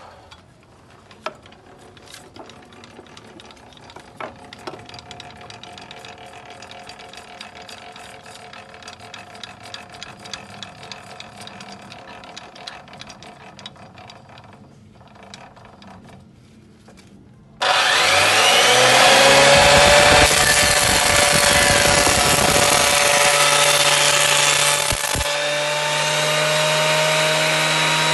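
Hitachi thickness planer starting up about two-thirds in, its motor whine rising in pitch and settling. It then planes a board with a loud, coarse cutting noise for several seconds and runs on steadily. Before the start there are only faint steady tones and a few light knocks.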